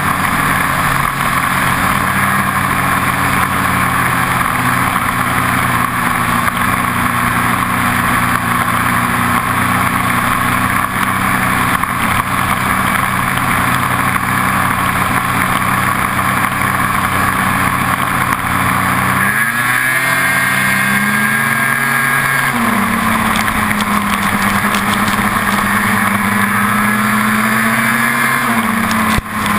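Snowmobile engine running at speed over a constant rush of wind and track noise, holding a steady note. About two-thirds of the way in the note drops, then climbs and holds higher as the throttle opens, and it dips again just before the end.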